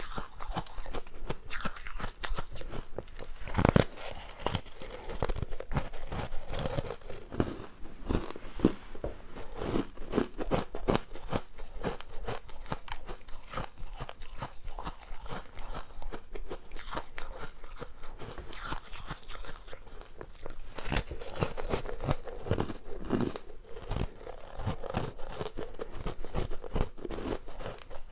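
Close-miked biting and chewing of hard frozen ice made with basil seeds: dense, irregular crunching and crackling as pieces are bitten off and ground between the teeth, with the loudest bite about four seconds in.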